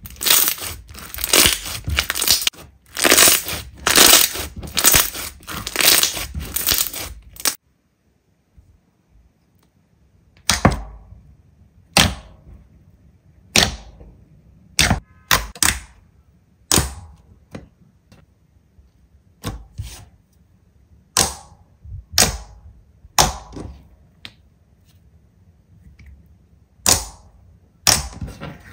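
Slime being handled: dense crunching and crackling for the first several seconds, then a short silence. After that comes a string of sharp single snaps and pops, about one every second or so.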